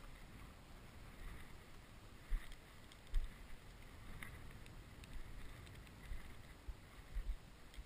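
Wind buffeting the microphone in an open field: a low rumble with a few stronger gusts, and faint crackles of dry stubble.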